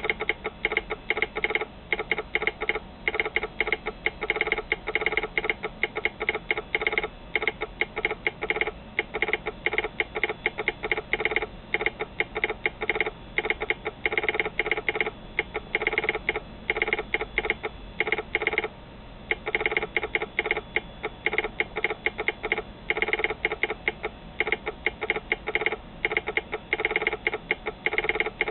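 Telegraph key and sounder clicking out railroad American Morse code at about 24 words per minute: rapid, uneven runs of sharp clicks, with one short pause about two-thirds of the way through.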